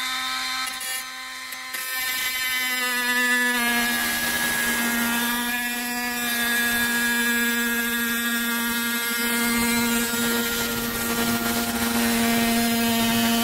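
Oscillating multi-tool running at a steady, loud buzzing pitch as its blade cuts through the boot's carpet lining.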